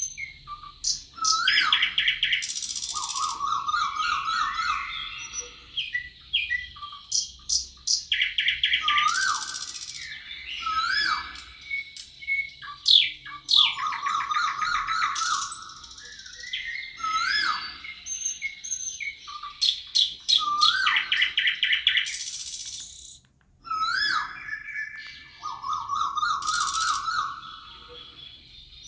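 Forest birds singing: song phrases of rising whistled notes, fast trills and high buzzy notes, repeated every few seconds.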